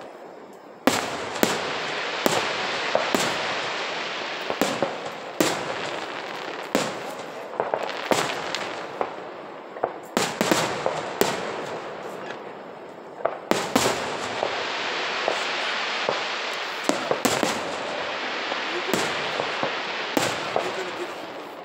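Aerial fireworks shells bursting, many sharp bangs at irregular intervals from about a second in, over a steady hiss.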